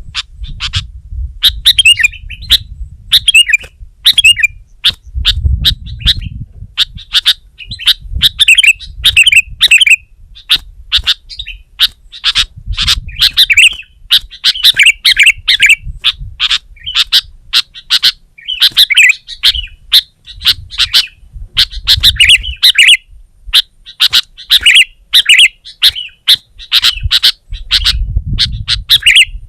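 Sooty-headed bulbul (kutilang) singing in a fast, unbroken stream of short chirps and warbled phrases. A low rumble comes and goes underneath.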